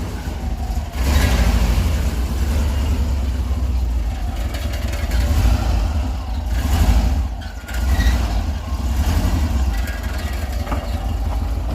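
VW Kombi running with its exhaust banging and rattling underneath: the mufflers are broken, one of them cracked at the rear.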